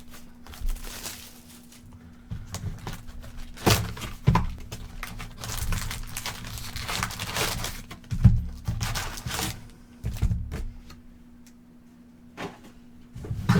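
Trading card box and its packaging being opened and handled: plastic crinkling and tearing in bursts, with several thunks of the cardboard box.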